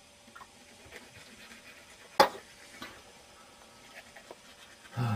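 Quiet room tone with faint scattered ticks, broken by one sharp click about two seconds in, a fainter click just after it, and a short low bump near the end.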